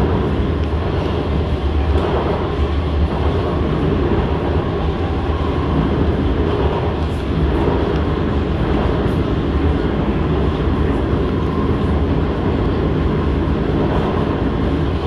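Interior running noise of an SMRT C151 metro car fitted with permanent-magnet synchronous traction motors, travelling at a steady pace: an even low rumble of the car and wheels on the track.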